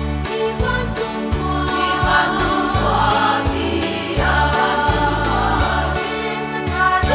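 Women's choir singing a gospel song in parts over a backing track with a steady drum beat and a stepping bass line.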